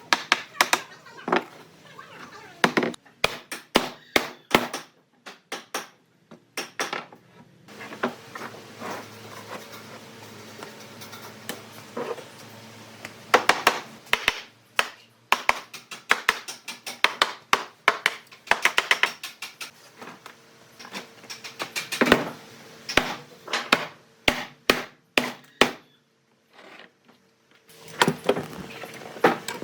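Hand tools knocking and tapping on wood in irregular quick runs of sharp strikes, with short pauses between.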